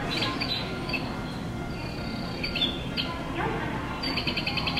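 Recorded birdsong from a station's audio guidance system, a looped sound sign that helps blind passengers find the stairs. It plays short high chirps, with a quick run of them near the end, over the station's steady background noise.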